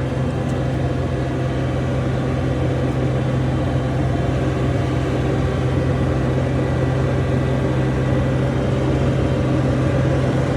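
John Deere 250 skid steer's diesel engine running steadily, heard from on board the machine as a constant low drone.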